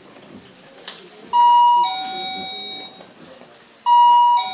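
Doorbell chime ringing a two-note ding-dong, a higher note then a lower one, twice, about two and a half seconds apart.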